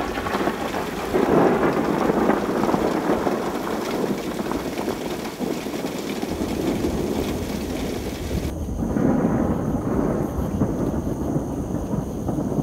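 Thunderstorm: rolling thunder over steady rain, swelling twice. About two-thirds of the way through, the rain's high hiss cuts off abruptly and a faint steady high tone takes its place.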